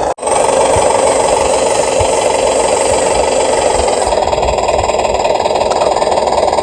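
Steady whirring and grinding of the small electric gear motors of a Huina 1550 RC excavator, broken by a brief dropout a moment in.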